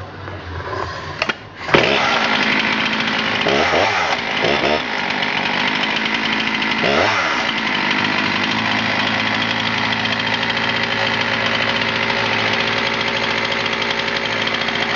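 Husqvarna 272 XP 72cc two-stroke chainsaw starting up about two seconds in. Its engine speed swings briefly a few times, then it settles into a steady idle.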